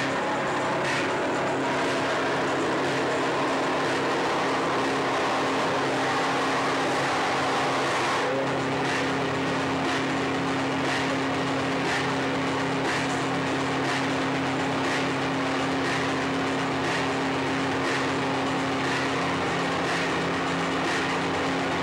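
Live electronic noise music: a dense, steady wall of noise over low droning tones, with a sharp pulse about once a second.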